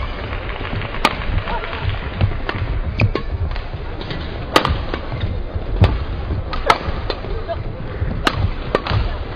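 Badminton rackets striking a feather shuttlecock in a doubles rally: a run of sharp hits, about seven, coming every second or so over a steady arena rumble.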